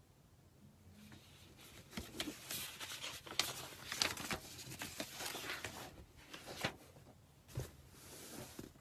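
Faint, irregular rustling and small clicks of handling noise close to the microphone, coming in scattered bursts after a quiet first second.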